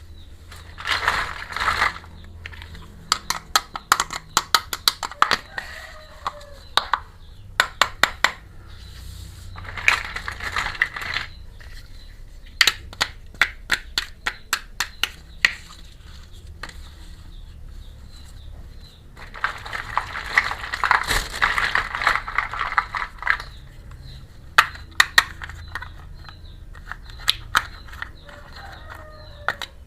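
Small plastic miniature kitchen toy pieces being handled: runs of sharp clicks and taps as the pieces knock together, with three longer stretches of crinkling packaging.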